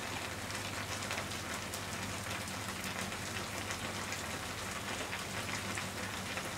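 Sukiyaki simmering in a pan on a gas burner: a steady fine crackle and sizzle of the bubbling soy-sugar broth.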